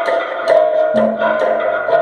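Abstract experimental music: sharp percussive clicks about twice a second over a steady held tone, with low notes underneath.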